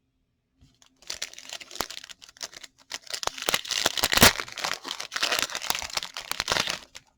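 Foil wrapper of a trading-card pack being torn open and crinkled: a run of crackling with sharp snaps that starts about a second in and is loudest around the middle.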